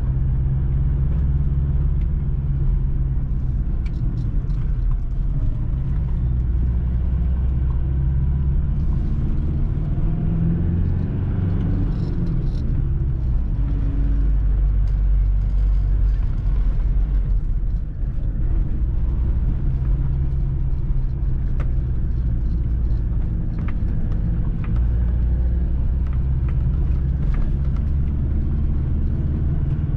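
Car driving, heard from inside the cabin: a steady low rumble of engine and tyre noise, with the engine note shifting up and down a little around the middle and a brief dip in loudness a little past halfway.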